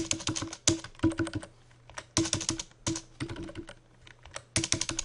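Typing on a computer keyboard, entering numbers in short runs of several quick keystrokes with brief pauses between them.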